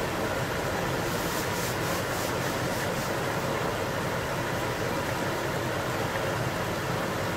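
Kitchen range hood fan running with a steady rush, a few faint high crackles about a second or two in.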